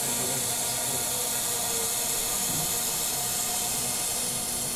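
CNC router's spindle motor running steadily with a high hiss and a faint steady whine while its bit cuts a circle into pink foam insulation board.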